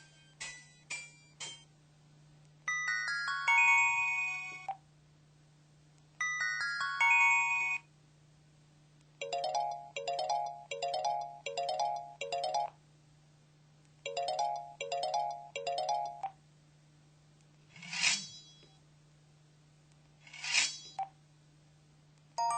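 KTF-X7000 mobile phone playing a series of its built-in sound effects through its speaker: short chiming tone melodies, then a trilling ring pattern repeated in quick bursts, then two short noisy sweeps near the end. A steady low hum runs beneath.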